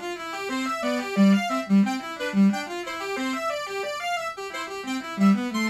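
Background music: a tune of quick, evenly paced notes.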